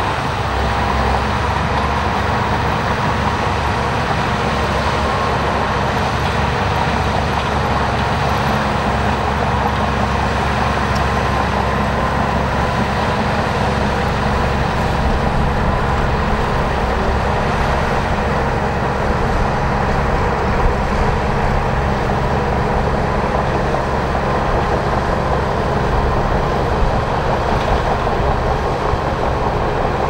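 Shantui DH17 crawler bulldozer running steadily as it works, a continuous mechanical drone with no breaks.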